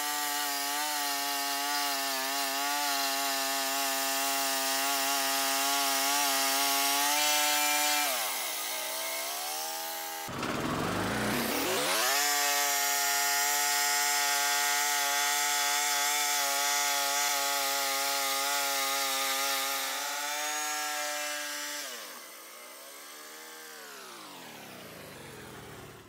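Portable band sawmill cutting through a log, its gasoline engine running hard and steady as the band blade saws. The engine note falls away about eight seconds in, climbs back up with a short burst of noise, runs steady again, then winds down near the end.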